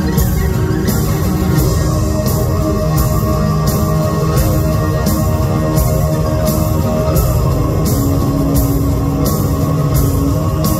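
Mongolian folk-metal band playing live: distorted guitars, bowed folk strings and drums over the PA, with cymbal hits keeping a steady beat about twice a second.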